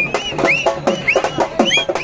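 Fast, loud drumming, a sharp beat about six strokes a second, with short rising-and-falling shouts or whistles from a dense, excited crowd over it.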